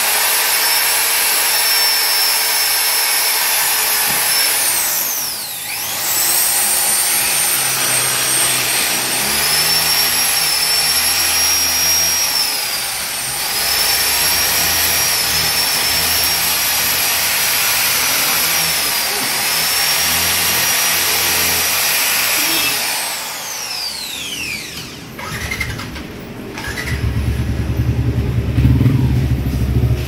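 A handheld power tool running at high speed with a steady high whine that dips in pitch now and then as it bites, spinning down with a falling whine about five seconds in and again around twenty-five seconds. Near the end a deep engine sound starts up and grows louder.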